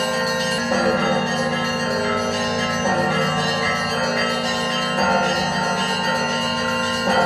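Church bells ringing, with a new stroke about every two seconds that rings on under the next.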